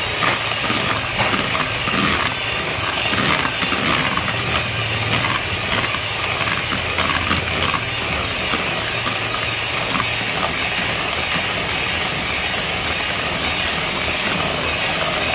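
Electric hand mixer running at high speed, its beaters whisking batter in a plastic bowl: a steady motor hum with irregular clicking over the first half, evening out later.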